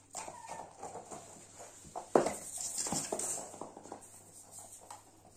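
Corgi puppy playing with a plush toy on a hard laminate floor: claws tapping and scuffling, with one sharp knock about two seconds in.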